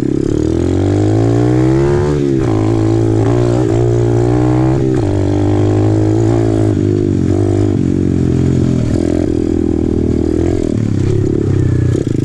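Apollo RFZ 125cc pit bike's single-cylinder four-stroke engine under way on a dirt trail. The revs climb, dip at a gear change about two seconds in, climb again, then run fairly steady.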